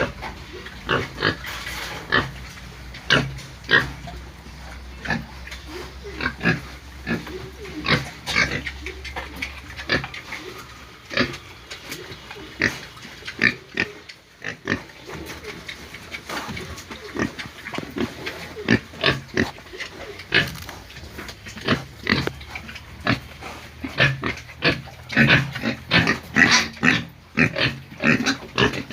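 Pigs squealing and grunting in a stream of short calls, which come thicker and faster near the end.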